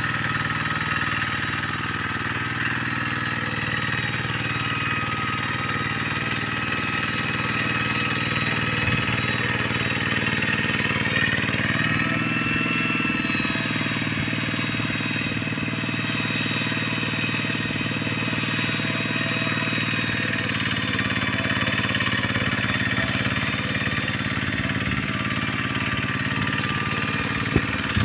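Hand tractor's single-cylinder diesel engine running steadily while pulling a plow. Its pitch shifts a little about halfway through, and there is a single sharp knock near the end.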